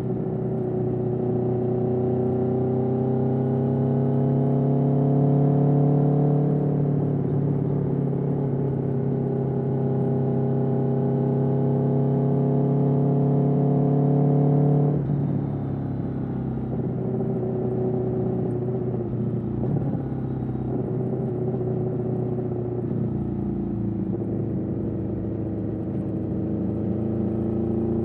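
2021 Aprilia Tuono V4's V4 engine running through an Austin Racing GP1R exhaust. The engine note climbs slowly for several seconds, drops suddenly about halfway through, then carries on at a lower, rougher note.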